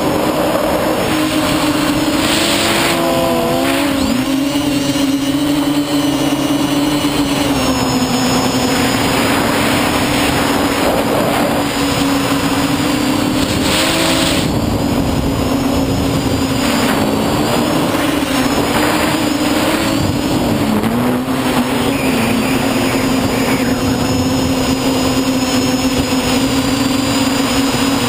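Electric motors and propellers of an FPV quadcopter heard from its onboard camera: a steady buzzing hum whose pitch wavers and dips as the throttle changes, with a faint high whine above it and rushing air.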